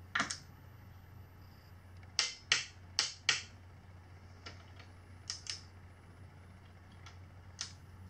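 Sharp clicks of hand tools working the steering stem bolts during a headset bearing adjustment on a Sur Ron Light Bee electric dirt bike, with a quick run of four about two to three seconds in and scattered single clicks after.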